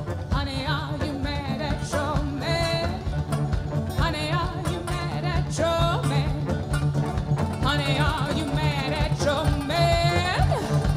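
Live old-time string-band music: banjo and band playing under a wavering lead melody line, with a steady bass underneath.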